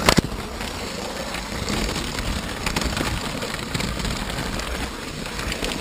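LEGO train's motor and wheels running along plastic track, a steady noisy running sound with a couple of sharp clicks right at the start.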